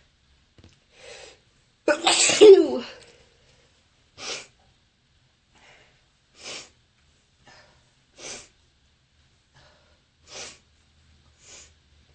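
A person sneezing once, loudly and harshly, after a short intake of breath; the sneeze comes from someone with bronchitis. It is followed by short breathy sounds about every two seconds.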